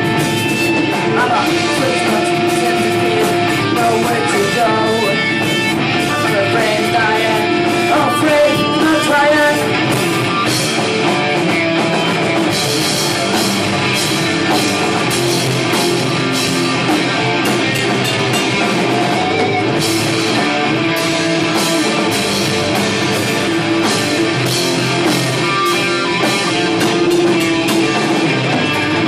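Live metal/rock band playing loud, with electric guitars and drums, heard from the audience.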